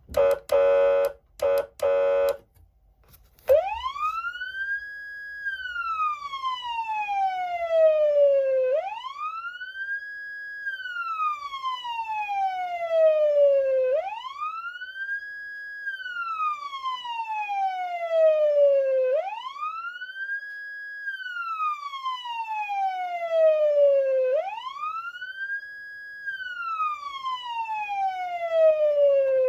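Federal Signal Unitrol electronic siren amplifier sounding through its speaker. It opens with a few short steady-pitched blasts, then runs a wail sweep about five times. Each cycle climbs quickly, holds briefly at the top pitch, then falls slowly back down.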